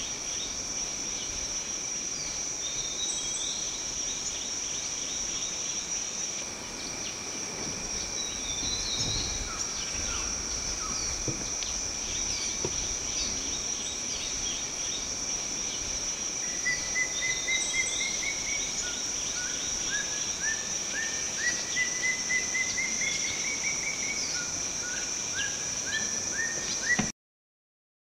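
Forest insects making a steady high drone and rapid chirping, with a bird joining past the middle, calling in repeated runs of short notes that step upward in pitch. The sound cuts off abruptly near the end.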